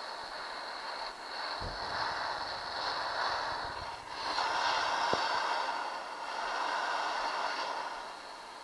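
Handheld gas torch burning with a steady hissing rush, heating an outboard's aluminium cylinder block to loosen a rusted, seized bolt. The rush swells and dips, with a single sharp click about five seconds in, and fades near the end.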